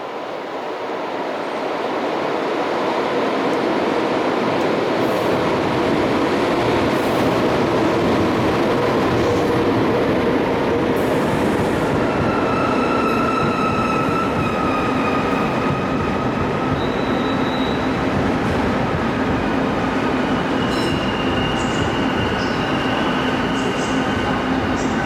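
An E500-series electric locomotive and a long rake of push-pull passenger coaches rolling slowly past at close range. The rumble of the wheels on the rails builds over the first few seconds and then holds steady. From about halfway, thin high-pitched wheel squeals come and go over it.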